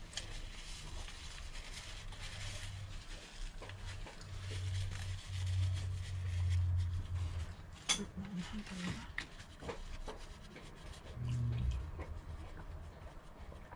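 Close-miked eating sounds: a person chewing and handling food, with a low rumbling hum through the middle and a sharp click about eight seconds in.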